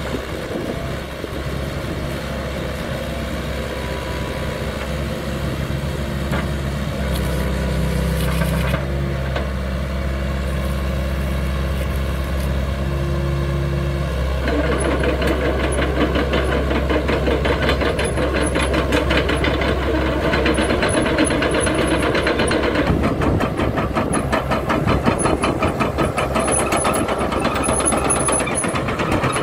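Hitachi Zaxis ZX75US excavator's diesel engine running steadily, its pitch stepping up about a quarter of the way in. From about halfway a louder, fast mechanical clatter joins it and carries on.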